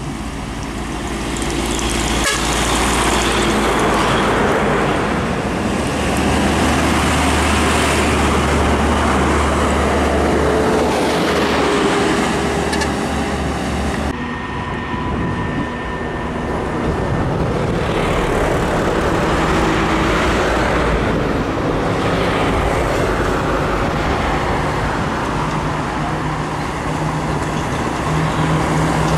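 Heavy container and box trucks passing one after another, diesel engines running and tyres rushing, each pass swelling and fading. A horn toots among the traffic.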